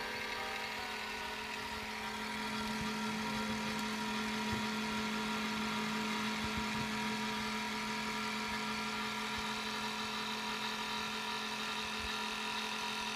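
Steady dark ambient drone of several held tones over a hiss of static, unchanging throughout.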